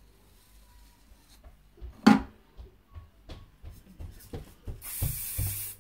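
Scattered knocks and clicks, the loudest a sharp knock about two seconds in, then a short steady hiss lasting under a second near the end.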